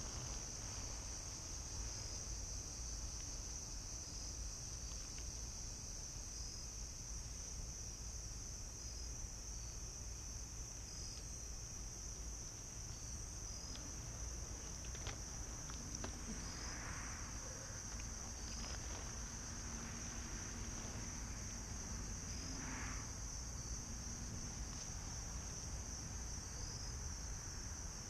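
Insects chirping in a steady evening chorus, a continuous high-pitched trill over a low rumble.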